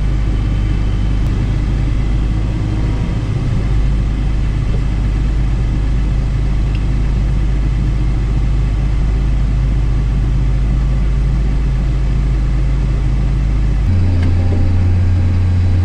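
Combine harvester engine running steadily as the machine drives, a low drone heard from the cab, with the separator not yet engaged. Near the end the low engine note shifts to a single stronger tone.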